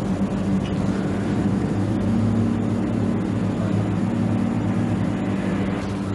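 Low sustained background score: held low notes that shift to a new pitch about two seconds in.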